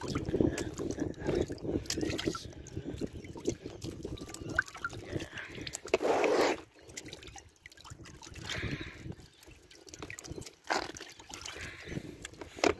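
Water sloshing and dripping in a bait bucket as live yellowtail scad are handled and lifted out of it, with one louder splash about six seconds in.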